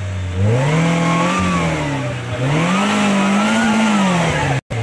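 Maruti Gypsy off-roader's engine revved hard under load while climbing a steep mud bank, rising and falling in pitch twice with the bursts of throttle. The sound cuts out for an instant near the end.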